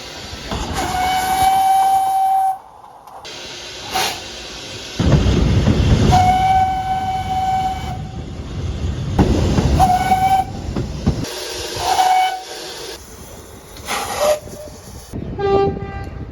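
A train whistle sounding one high note, two long blasts of about two seconds and several short toots, over the rumble and hiss of rail traffic. A lower-pitched horn sounds near the end.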